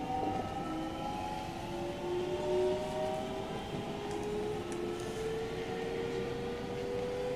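JR Central 313 series electric train under way, its traction motors whining in several tones that climb slowly and steadily in pitch as the train gains speed, over the rumble of the running gear.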